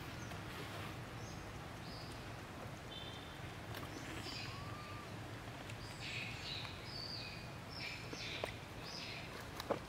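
Steady outdoor background noise with scattered faint, high, short chirps, most of them in the second half, and a few soft clicks.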